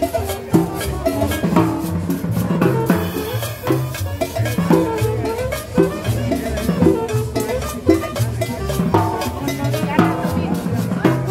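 Live street band playing upbeat dance music: a drum kit keeping a steady beat under a walking bass line from an upright bass, with a saxophone melody above.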